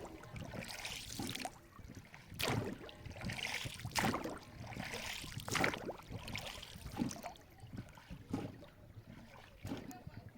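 Water splashing and sloshing in irregular surges about every one to two seconds.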